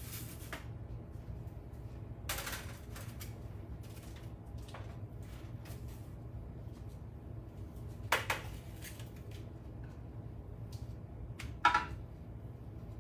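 Scattered knocks and clatter of baking trays and kitchen utensils being handled at the stove, a few separate hits with the loudest two about eight and eleven and a half seconds in, over a steady low hum.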